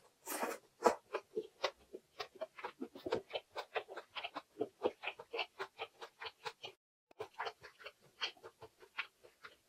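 Close-miked chewing of a mouthful of anchovy egg fried rice: quick, wet mouth clicks about four or five a second. A sharper click comes about a second in, and there is a brief break about two-thirds of the way through.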